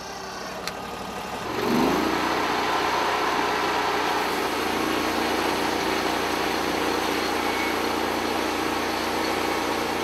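Portable band sawmill's engine revs up about one and a half seconds in, then runs steadily under load as the band blade saws through a squared log.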